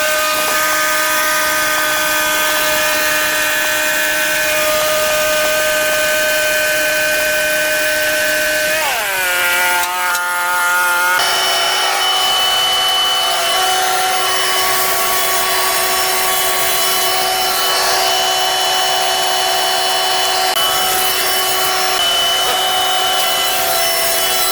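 Power saw running through wood with a steady machine whine. About nine seconds in, the pitch drops sharply and then holds steady at the lower note.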